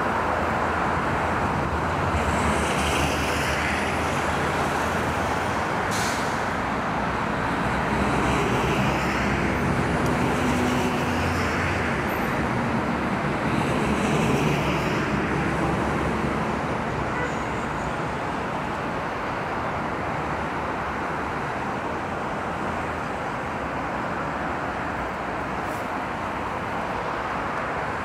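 Steady road-traffic noise that swells a few times in the first half as vehicles pass, then settles a little lower.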